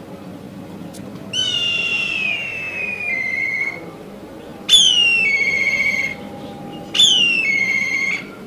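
Black kite calling: three whistled calls, each starting high, sliding down and ending on a held, wavering note. The first is the longest; the second and third come more sharply and are the loudest.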